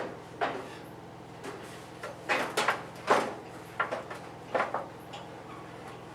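Irregular knocks and clunks as the Kero World KW-11F kerosene heater's housing is handled and seated back over the heater, about half a dozen sharp knocks in all.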